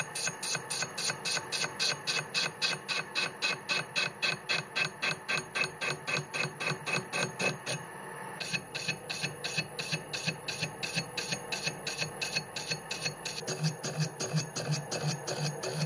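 Homemade lathe turning a large metal disc with a carbide insert, the cut knocking rhythmically about four to five times a second as the insert meets the uneven, roughly cut rim once each turn, over a steady high whine from the machine.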